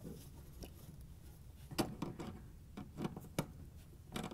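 A few soft, irregular clicks and taps of gloved hands fitting the main water line to the bottom of a refrigerator water inlet valve.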